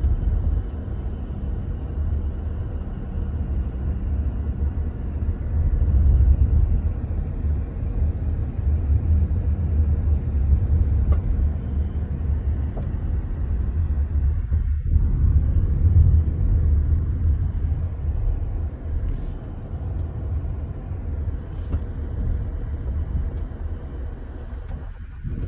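Car driving down a road: a steady low rumble of engine and tyres that swells and eases slightly.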